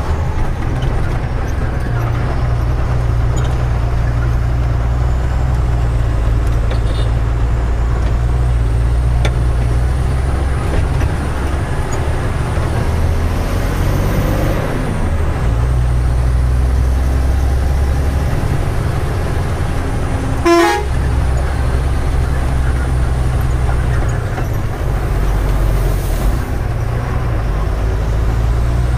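Tata 3118 truck's diesel engine droning steadily inside the cab while driving, its note shifting around the middle. A single short horn toot about two-thirds of the way in.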